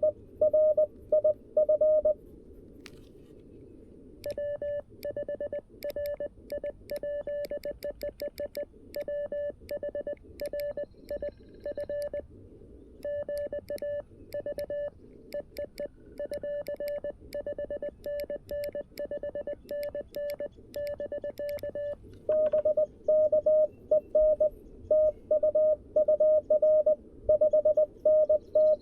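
Morse code (CW) from a CFT-1 QRP transceiver, all at one pitch. Loud keyed dots and dashes for about two seconds are the operator's own sidetone from his paddle. Then comes a fainter, faster run of code for about eighteen seconds, the other station's signal heard through the receiver. Loud keyed code starts again about 22 seconds in.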